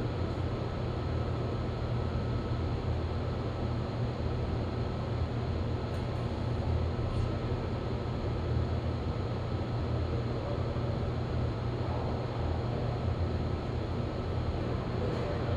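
Freshly rebuilt Caterpillar 3406E inline-six diesel running at a steady speed on its first run after the rebuild, a deep even rumble with a faint steady whine above it.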